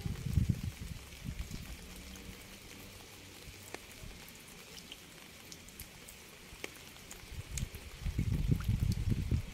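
Rain, with single drops tapping close by as sharp scattered clicks over a faint hiss. A loud, unsteady low rumble fills the first second and returns about seven and a half seconds in.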